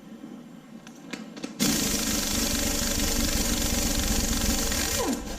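Pneumatic air impact wrench running for about three and a half seconds on a bolt of an LS V8 engine being torn down, then winding down with a falling whine. A few light clicks come just before it starts.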